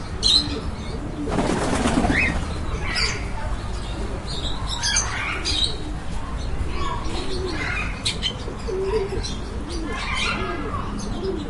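Pigeons cooing in repeated low calls and parakeets chirping in quick high notes. About a second and a half in there is a short flurry of wing flapping.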